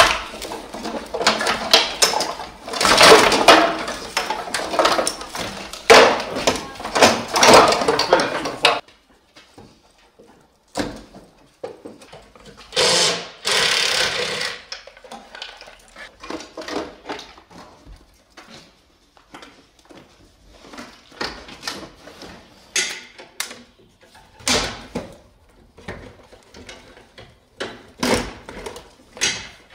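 Clattering, rattling and knocking of metal parts and wiring being stripped from a car's front end. It is dense and continuous for about the first nine seconds, then breaks into scattered knocks and clanks with a louder burst around the middle.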